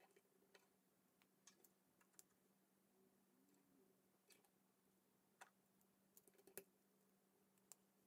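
Faint, scattered clicks of plastic K'NEX rods and connectors being handled and snapped together, irregularly spaced, over near silence with a faint steady hum.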